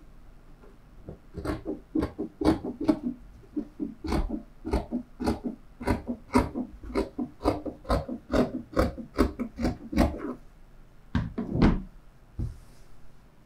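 Dressmaking scissors snipping through fabric in a steady run of cuts, about two or three a second, then a single knock near the end as the scissors are laid down on the wooden table.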